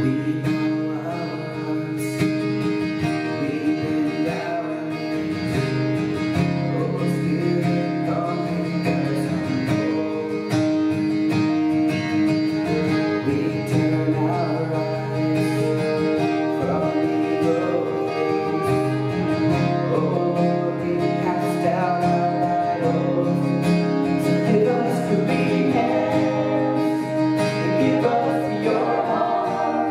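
Worship band music: strummed acoustic guitar with keyboard and drums, and voices singing a song whose lines change every dozen seconds or so.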